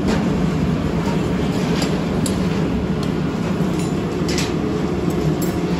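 Steady low mechanical drone of running foundry machinery, with a few light taps over it.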